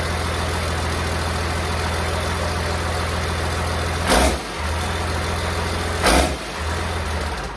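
Cummins diesel engine running at idle with a steady low drone, with two brief louder surges about four and six seconds in.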